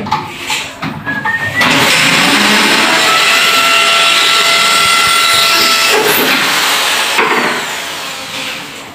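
Electric power drill: two short blips of the trigger, then a steady run of about five seconds with a constant motor whine, winding down and fading near the end.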